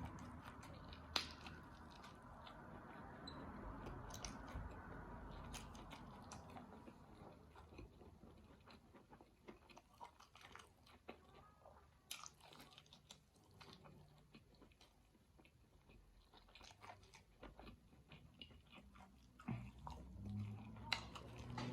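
A person chewing a big mouthful of food, faint, with scattered small mouth clicks.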